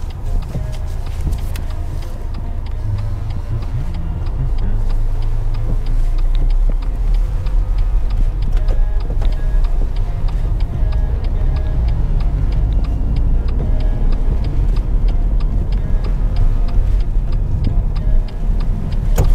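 A car's turn-signal indicator ticking steadily at an even rate, over the low rumble of the engine and tyres inside the cabin.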